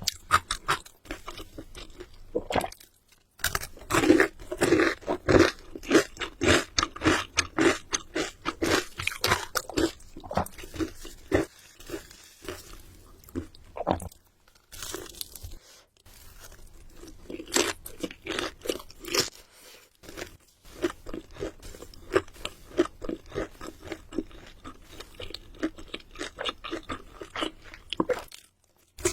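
Crunchy bites and chewing of crispy food, in runs of crackling crunches separated by short pauses.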